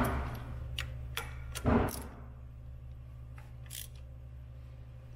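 Socket ratchet handled against a Ural motorcycle's gearbox while snugging down the gearbox dipstick plug: two sharp metal knocks, at the start and about two seconds in, and a few sparse ratchet clicks.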